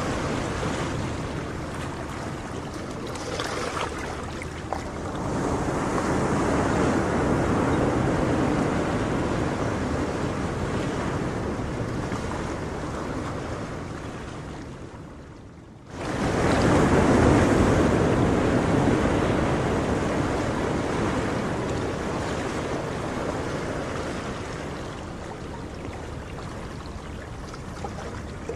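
Ocean surf, waves washing in and out in slow swells. About fifteen seconds in it fades almost away, then comes back suddenly with its loudest surge.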